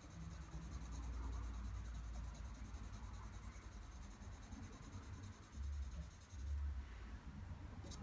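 Graphite pencil scratching across drawing paper in repeated shading strokes, laying in tone, over a low rumble. A single sharp click near the end.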